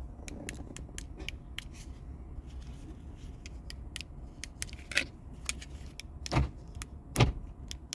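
Scattered light clicks and small metallic jingles of keys being handled, with a few louder knocks in the second half, over a steady low hum.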